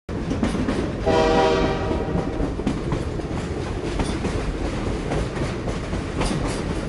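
Train running on the rails, a steady rumble with repeated clicks from the wheels; a horn sounds for about a second, about a second in.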